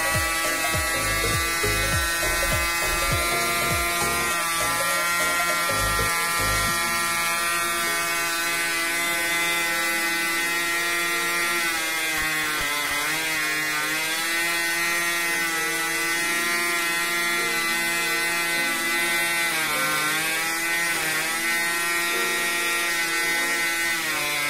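Aero 35 glow-plug two-stroke axial (horizontal-piston) model airplane engine running steadily at high speed with a buzzing note. Its speed dips briefly about twelve seconds in and again about twenty seconds in.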